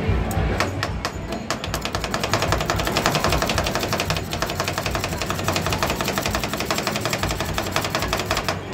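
Two metal spatulas chopping rapidly on a frozen ice cream pan, mixing pieces into Thai rolled ice cream. There are a few scattered clacks at first, then a fast, even clatter of many strikes a second from about a second and a half in, stopping just before the end.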